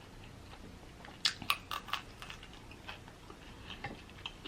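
Close-miked chewing with soft wet mouth clicks, and a quick cluster of sharper clicks a little over a second in.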